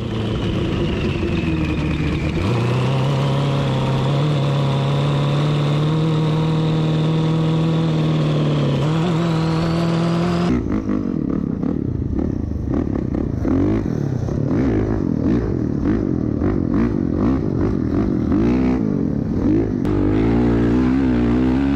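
A steady motor hum with a high whine that glides up and down for about ten seconds. Then it changes abruptly to a Honda CRF450R's single-cylinder four-stroke dirt bike engine revving up and down as it is ridden through sand.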